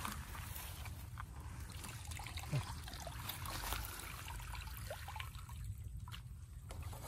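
Water trickling and splashing as a woven bamboo scoop basket is lifted out of shallow paddy water and drains through its weave, with a short thump about two and a half seconds in.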